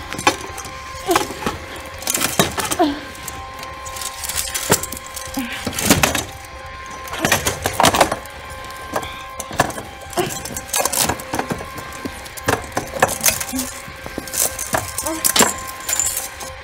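Metal chain rattling and clanking in irregular bursts as a bound, gagged person struggles on a hard floor, with short muffled grunts through the gag. A steady held drone sounds underneath.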